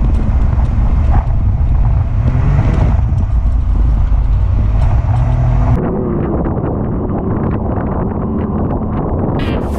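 Can-Am ATV engine running under throttle, with heavy wind buffeting on the microphone. About six seconds in, it cuts to a side-by-side's engine and wind, a little quieter.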